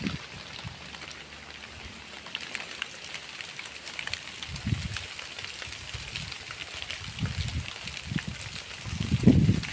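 Rain falling, with many individual drops ticking on a surface. A few low rumbles come through, louder near the end.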